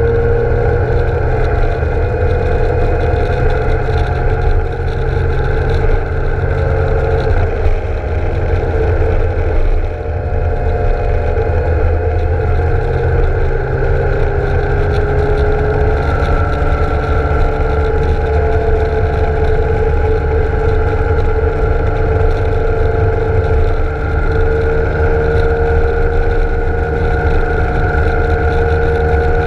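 BMW K1600 GTL inline-six engine running at a steady cruising speed, its pitch drifting only a little, over a constant low rumble of wind and road noise on a handlebar-mounted GoPro.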